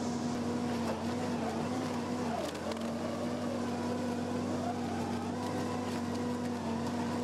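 A URACO Predator stump shredder, driven by a Caterpillar C15 six-cylinder turbo diesel, running steadily under load as its rotor shreds tree stumps. It makes a constant mechanical drone with a steady hum, dipping briefly about two and a half seconds in.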